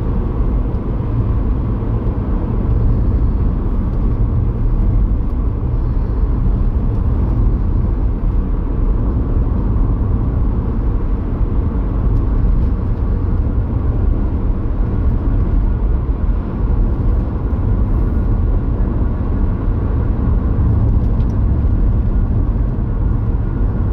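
Car driving along at about 30 to 35 mph, a steady low rumble of engine and tyres on the road heard from inside the cabin.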